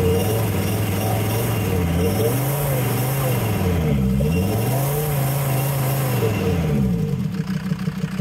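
Mercedes-Benz Sprinter minibus diesel engine revved and held at raised speed, its pitch rising and dipping a few times, then falling back to a pulsing idle about seven seconds in.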